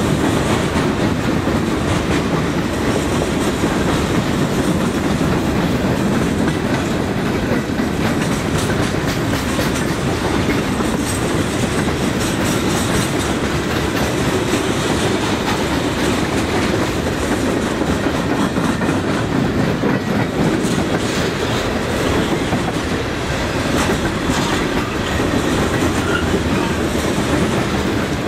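Freight train cars (boxcars, tank cars and covered hoppers) rolling past: steady, loud noise of steel wheels running on the rails, without letup.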